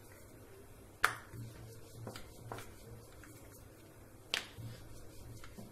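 Sharp clicks and light knocks from dough being rolled out with a wooden rolling pin on a marble rolling board and handled. The loudest clicks come about a second in and again a little past four seconds. A faint low hum runs underneath.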